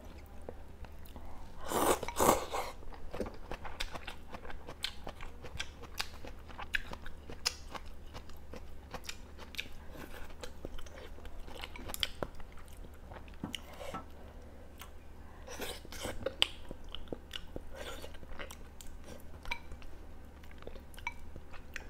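Close-miked eating: wet chewing of rice noodles and duck hotpot, full of small mouth clicks. There are a couple of louder breathy bursts, one about two seconds in and one near sixteen seconds.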